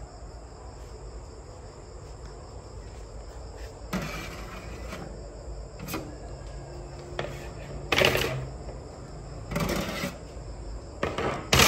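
A few scattered knocks, rattles and a sharp click from stainless-steel air-fryer oven racks and accessories being handled, the loudest about two-thirds of the way through, over a faint steady high-pitched whine.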